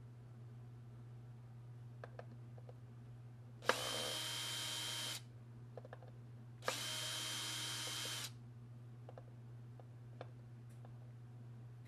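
Cordless drill-driver with a Torx bit backing out the platter screws of an opened hard drive: two runs of about a second and a half each, each starting with a sharp click and holding a steady whine.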